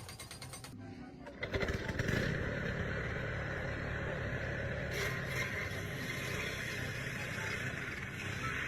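A motor starts about a second and a half in and keeps running steadily, after a fast ticking at the start.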